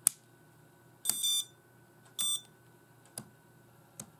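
A toggle switch on a Taranis X-Lite radio transmitter clicks sharply once. Two short, high electronic beeps follow about a second apart, then two faint ticks near the end.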